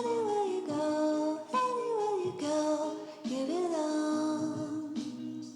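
Background music: a tune whose melody is carried by a singing voice in short gliding phrases, each about a second long, over a steady accompaniment.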